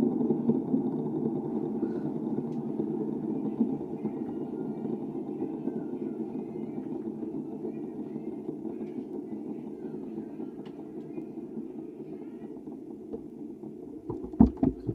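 Fidget spinner whirring on its bearing, coming in abruptly and slowly getting quieter as it winds down, with a few handling clicks near the end.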